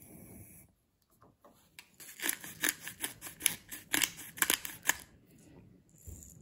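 Kitchen handling sounds: a quick, irregular run of about a dozen sharp clicks and scrapes, starting about two seconds in and stopping about five seconds in.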